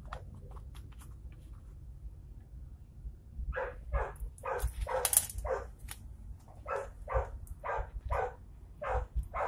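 A dog barking in quick runs of about two to three barks a second, starting a few seconds in and pausing briefly partway through; light clicks and taps are heard in between.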